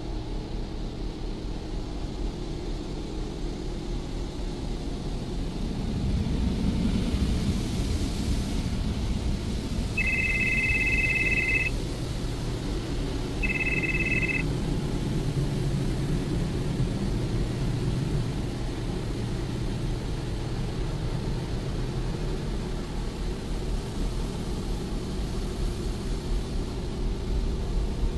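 Touchless automatic car wash heard from inside the car's cabin: water spraying and sheeting over the car over the gantry machinery's steady low rumble, which swells about six seconds in. Two electronic beeps sound around ten and thirteen seconds in, the first about twice as long as the second.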